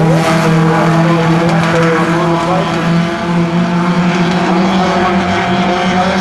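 Several dirt-track speedway cars' engines running hard as they lap the oval, a loud steady drone with a few short rising revs.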